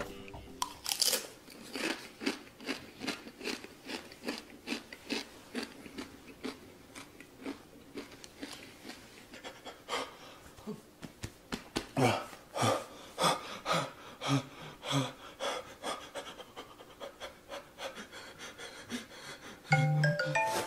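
A man panting in quick, uneven breaths through his open mouth, from the burn of a Paqui One Chip Challenge chip, with small mouth and lip sounds in between.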